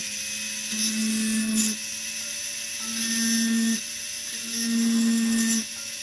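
Jeweller's rotary handpiece with a small burr cutting stone seats into a metal ring: a steady high motor whine that swells louder three times, for about a second each, as the burr is worked against the metal.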